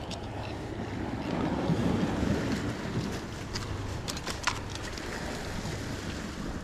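Sea surf washing against the rocks, with wind on the microphone, swelling a little about two seconds in. A few light clicks are heard in the middle.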